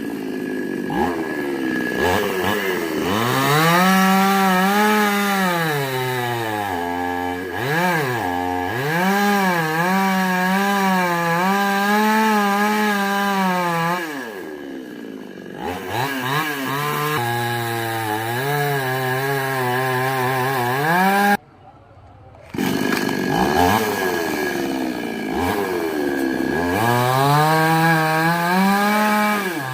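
Two-stroke chainsaw cutting wood, its engine pitch repeatedly climbing to full revs and sagging as the chain bites under load. It eases down near idle about halfway through and breaks off abruptly for about a second near the three-quarter mark.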